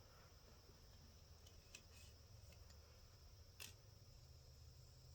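Near silence: room tone with a low hum and a few faint clicks, the clearest a little past halfway.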